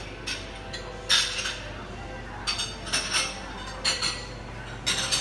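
Crockery and cutlery at a café bar counter clinking: about half a dozen sharp, ringing clinks at irregular intervals, over a low steady hum.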